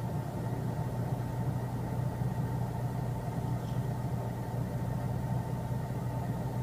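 A steady mechanical hum, like an engine idling, with a faint high whine over it; it does not change.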